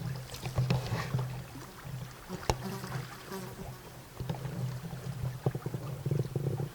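Water sloshing and splashing around the legs of an angler wading in a river, in uneven surges, with a single sharp knock about two and a half seconds in.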